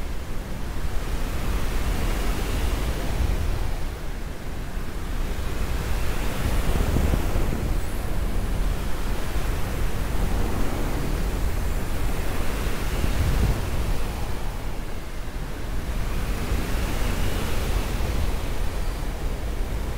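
Airflow rushing over the camera microphone during steep banking paraglider manoeuvres. It is a steady rush that swells and eases every few seconds as the turns tighten and relax.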